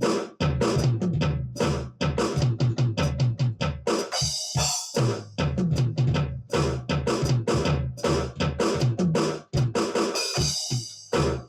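ddrum electronic drum kit played in a busy, steady groove, with kick, snare and cymbal hits.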